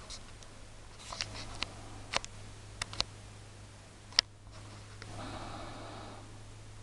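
Handling noise from a handheld camera: a scatter of small clicks and taps, with one sharp click about four seconds in, over a low steady hum. A brief soft rustle follows near the end.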